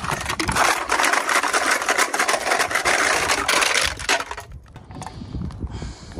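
Crushed aluminium drink cans, can tops and other metal junk tumbling out of a mesh bag onto gravel: a dense metallic clatter that dies away about four seconds in.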